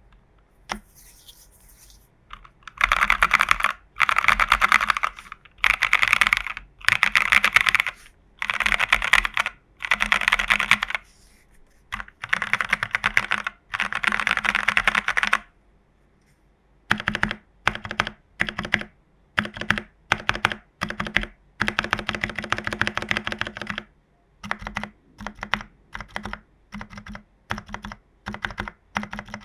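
Mechanical keyboard with NK Cream linear switches and XMI Cyrillic keycaps, in a plateless TU40 plastic case with case foam, PCB foam and a tape mod. It is typed in quick runs of keystrokes, each a second or two long, with short pauses between them. Near the end the runs get shorter, with some single key presses.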